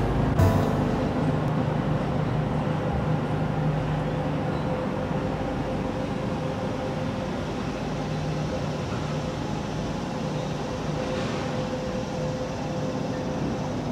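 Street traffic noise: a steady rumble of vehicles with a low hum, easing slightly over the first several seconds and then holding steady.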